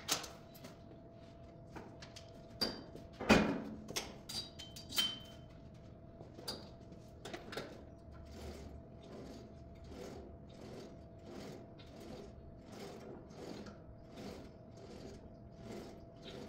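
Hoist cable pulldown machine being worked: a few sharp metal knocks and clicks in the first few seconds, the loudest about three seconds in, then a soft swishing repeated about twice a second as the handle is pulled down on its cable.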